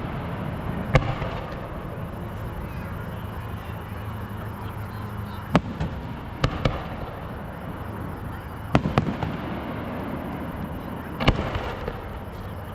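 Aerial fireworks bursting: about seven sharp bangs, a few of them in quick pairs, spread out over a steady background noise.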